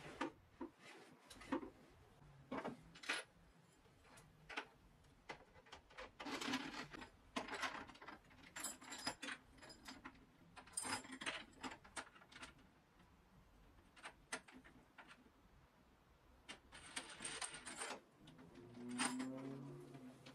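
Hands handling a tapering jig on a table saw's sliding table: scattered light clicks and knocks of metal clamp and stop parts against wood, with short scraping slides. A brief low rumble near the end as the sliding carriage is moved.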